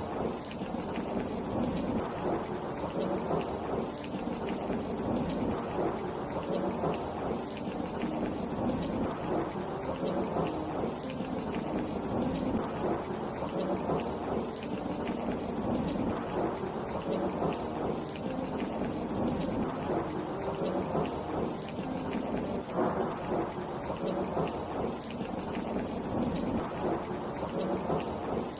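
Steady heavy rain: a dense patter of drops over a continuous low rumble.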